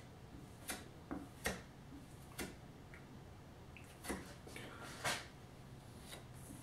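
Metal putty knife scraping and tapping as it spreads spackling paste: about six short strokes, the loudest about one and a half and five seconds in.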